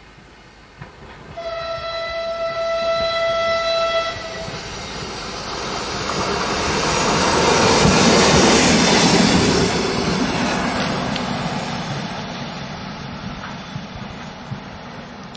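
A train sounds its horn in one steady blast of about two and a half seconds, then passes close by, its running noise swelling to a peak about eight seconds in and fading away.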